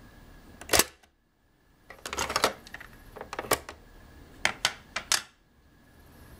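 Sharp mechanical clicks and clacks from handling a Superscope C-205 cassette recorder and a cassette: one loud click about a second in, a quick run of clicks a second later, then single clicks and three more in quick succession near the end.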